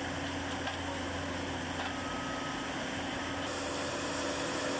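Steady hum of machinery running at a constant speed, with no knocks or clanks; a faint high whine comes in briefly near the middle.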